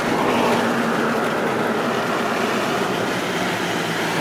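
A vehicle on the move, heard from inside the cabin: steady road and wind noise with a low engine hum underneath.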